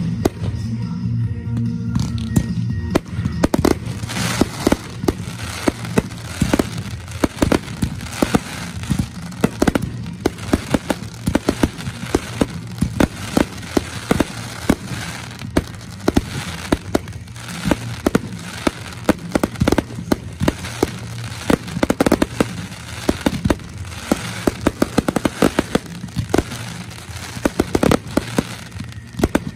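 Fireworks finale barrage: aerial shells and cakes going off in rapid succession, sharp bangs several times a second with crackling, thickening into a dense volley about three seconds in.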